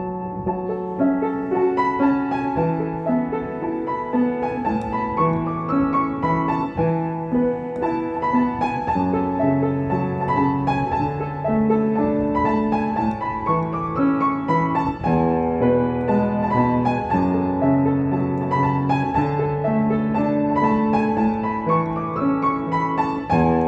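Upright piano played solo: a slow, flowing melody over repeated low notes, the notes ringing on into one another.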